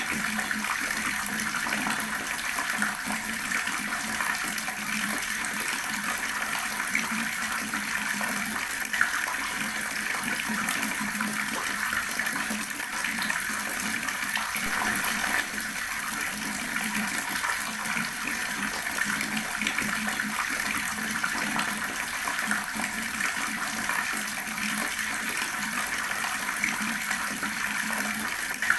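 Water tap running steadily, the stream splashing continuously.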